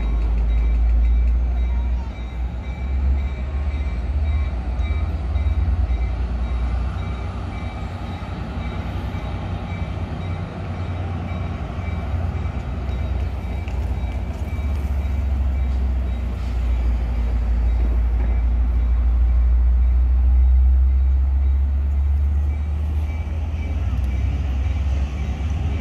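Amtrak California passenger train standing at the platform, a steady low rumble.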